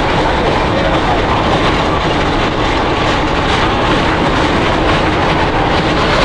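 Steel roller coaster train running at speed along its track: a steady roar of wheels on the rails mixed with wind rushing over the on-ride camera.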